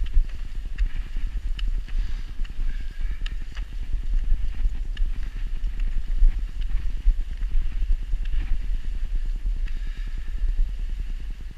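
Low, buffeting rumble of wind and motion on a moving action-camera microphone, over the crunch of snow underfoot as a person and a Siberian Husky on a leash travel along a snowy path. Short sharp clicks come through every so often.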